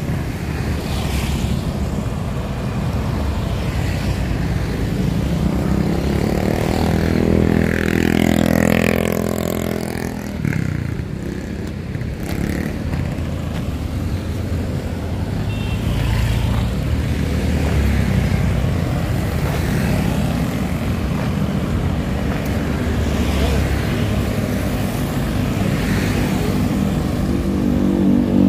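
Street traffic, mostly motorcycles and cars going past on a busy road. About eight seconds in, one engine passes close by and its pitch falls as it goes away.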